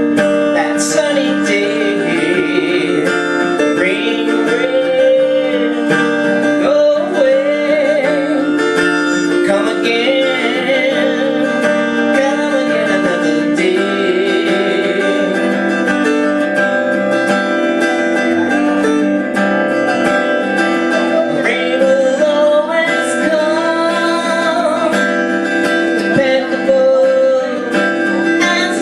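Acoustic guitar strummed steadily as the accompaniment to a solo singer performing a song.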